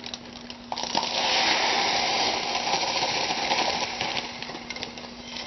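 Granular lye poured in a steady stream into a container for about four seconds, a dry rushing hiss of many small pellets landing.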